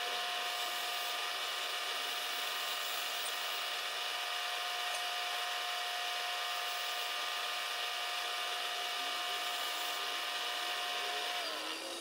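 Vertical milling machine running as an end mill faces down a cast boss on a machine base, a steady machine whine with cutting noise. Near the end the spindle is switched off and its pitch falls away as it spins down.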